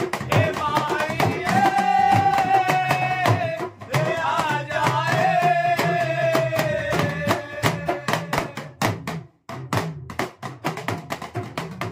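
Men singing a devotional bhajan together with several deru drums beaten with thin sticks in a steady rhythm. The singing stops about seven seconds in, and the drums play on alone, with a brief break about nine seconds in.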